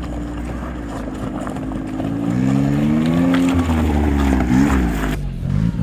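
Small off-road 4x4's engine running, then revving up about two seconds in, holding the revs, and easing off with a brief dip before the sound cuts off suddenly near the end.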